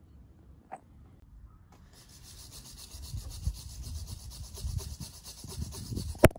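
Steel wire hand brush scrubbing rust off a steel EZ curl bar: a steady scratchy rasp that starts about two seconds in, with rhythmic rubbing strokes under it. A few sharp knocks near the end as the brush hits the bar.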